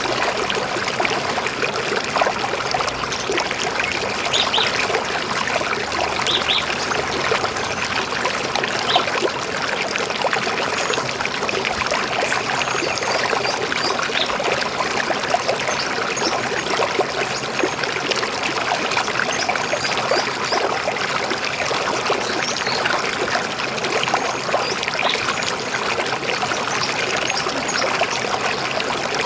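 River water flowing and gurgling steadily over stones, a dense, even rush of running water.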